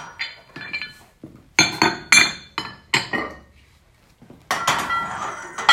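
Iron weight plates clinking against each other and against the steel barbell sleeve as a plate is slid off the bar. There is a quick run of sharp clinks about a second and a half in, then a longer ringing clatter near the end.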